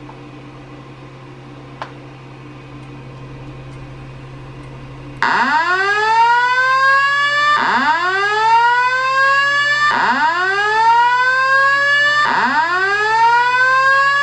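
Simplex fire alarm speakers sounding the whoop tone of a Simplex 4100U/ES voice evacuation message, played from a computer through an amplifier: four rising sweeps, each about two and a half seconds, starting about five seconds in. Before the tone there is a steady low hum and a single click.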